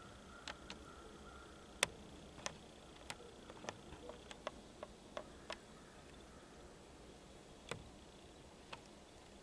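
A string of faint, sharp clicks and ticks at irregular intervals, about a dozen of them bunched in the first half and a few more later, over a quiet background with a faint steady high tone.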